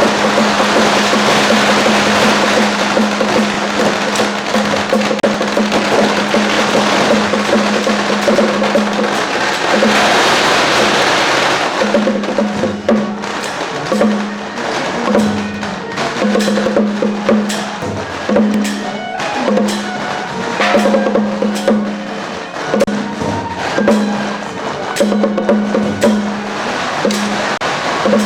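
Loud percussion music: drums and sharp, clacking strikes. For about the first twelve seconds a dense, hiss-like wash covers it; after that the strikes stand out one by one in an uneven rhythm over a steady low note that keeps breaking off.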